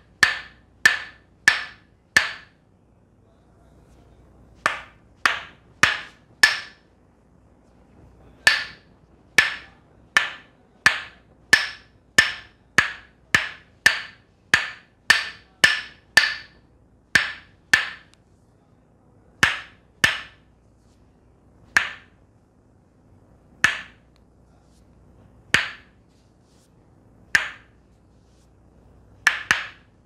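Wooden Tok Sen mallet striking a wooden wedge held against the shoulder, giving sharp, hollow wooden knocks. They come in runs of about two a second with short pauses, then slow to single knocks about every two seconds in the second half.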